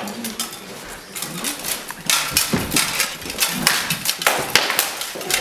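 Rattan swords striking armour and each other in armoured combat: a fast, irregular string of knocks and clacks that starts about two seconds in.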